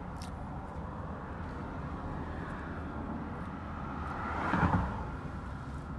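Steady low hum of a parked car's engine idling, heard from inside the cabin. About four and a half seconds in, a louder whoosh swells and fades as a vehicle passes outside.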